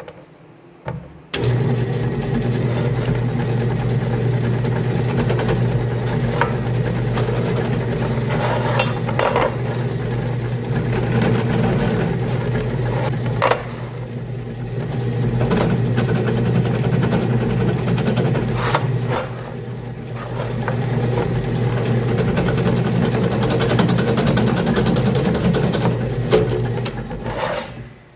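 Drill press switched on about a second in, its motor humming steadily while the twist bit cuts into a steel plate, with a few sharp ticks along the way. It goes quieter for a moment twice in the middle and stops shortly before the end.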